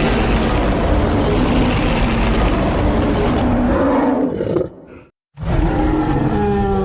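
Animal-like creature call played as a sound effect for the Ozark Howler, a legendary creature of Ozark folklore. A long, rough, noisy call lasts about four seconds and breaks off. After a short gap a second call starts, its pitch falling as it fades out.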